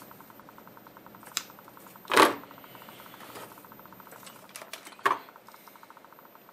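Hands handling a thin wire and an old circuit board, with small clicks and light metal handling noises, and two short louder noises about two seconds and five seconds in.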